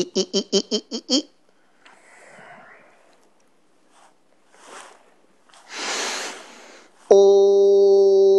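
A person's breathing: a quick run of six short voiced huffs, then a few slow breaths with one long, deep breath. About seven seconds in, a sustained synthesizer chord starts suddenly and is the loudest sound.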